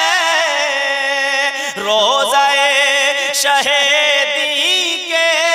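A man singing a naat, an Urdu devotional poem in praise of the Prophet, in a single voice. He draws the line out in long, wavering held notes, with a short break and a new phrase about two seconds in.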